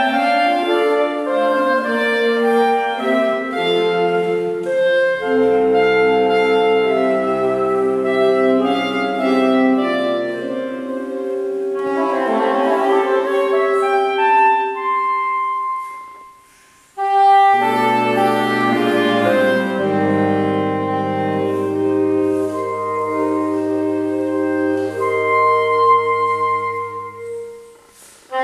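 Saxophone quartet of soprano, alto, tenor and baritone saxophones playing together in sustained chords over a low baritone line. The music breaks off briefly about two-thirds of the way through, comes back in, and fades out again near the end.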